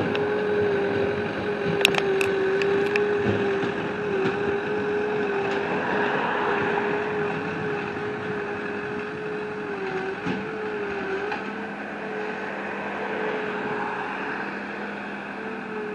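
An engine running steadily at one pitch, which dips briefly a few times as it takes load, with a few sharp cracks about two seconds in.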